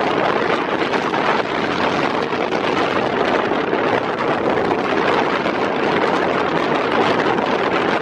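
Steady rushing noise of a passing catamaran workboat's engines and churning wake, mixed with wind buffeting the microphone.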